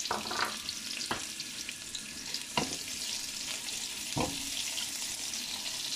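Chopped onion sizzling in hot oil in a non-stick kadhai as a spatula stirs it. The spatula knocks against the pan three times.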